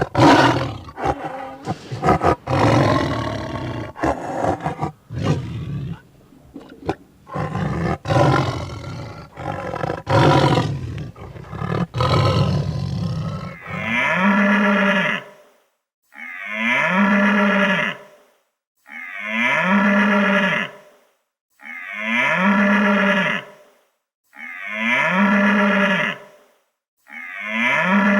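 Animal calls: a run of rough, irregular calls over a low hum, then, from about halfway, six identical drawn-out pitched calls repeated every two to three seconds, like one recording looped.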